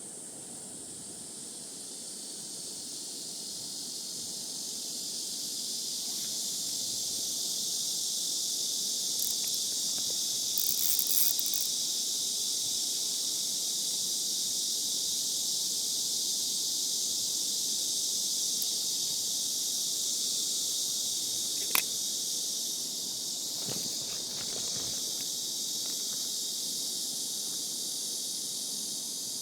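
A steady, high-pitched chorus of summer insects that swells over the first several seconds and then holds, with one sharp click a little past two-thirds of the way through.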